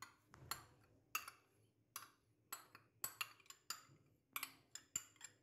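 Faint, sharp taps and clicks of a spoon against a dish, a dozen or so at irregular spacing, while cream is being added to a bowl of marinated chicken.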